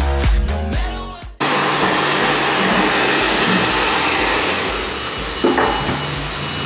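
Background pop music fades out, then about a second and a half in a hair dryer's steady rush of air cuts in, blow-drying long hair over a round brush.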